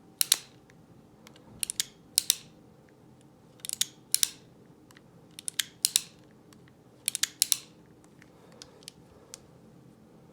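Metal clicks of an antique French MAS revolver's action being worked by hand: five groups of two or three sharp clicks, about one every one and a half to two seconds, then a few faint ticks near the end.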